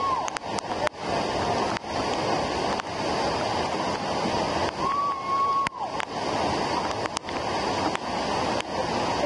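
Steady rushing of a waterfall, with a few scattered clicks and a short held tone about five seconds in that drops away at its end.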